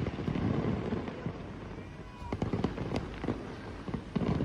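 Aerial fireworks shells bursting: deep booms in the first second or so, then a quick run of sharp cracks and pops from about two seconds in.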